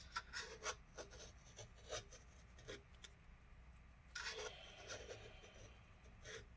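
Faint, irregular scraping and rubbing strokes of a tool working old battery adhesive out of a 13-inch MacBook Pro's case, with a longer scrape about four seconds in.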